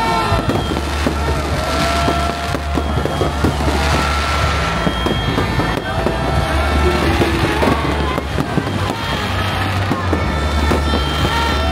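New Year's fireworks going off in a dense, continuous run of bangs and crackles, with music and a steady bass line playing underneath.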